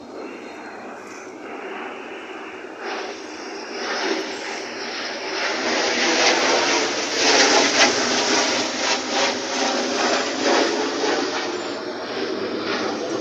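Bangladesh Air Force MiG-29 fighter jet passing by, its twin jet engines building to a loud peak about seven to eight seconds in and then slowly fading.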